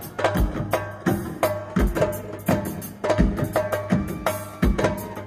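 Live Rastafarian nyabinghi hand drumming, with no singing. A deep bass drum stroke falls about once a second under a quick run of sharp, ringing hand-drum slaps, over a low steady hum.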